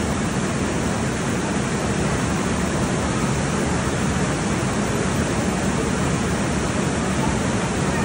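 Steady rush of water pouring down the flume of a raft water ride's drop, churning white water with no let-up.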